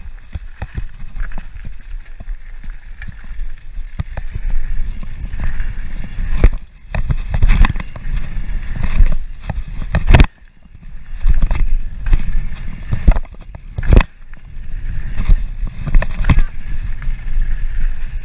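Mountain bike ridden fast down a gravel dirt-jump track, heard from a camera worn by the rider: a low rumble of tyres on gravel with many rattles and hard knocks from bumps and landings, the loudest around seven, ten and fourteen seconds in.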